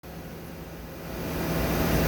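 Machine tool running with a steady low hum, getting louder and hissier through the second half.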